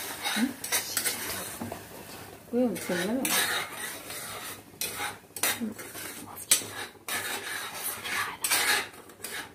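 Metal spoon stirring and scraping in a stainless steel pan, with irregular clinks against the pan's sides, as jaggery melts in a little ghee and water.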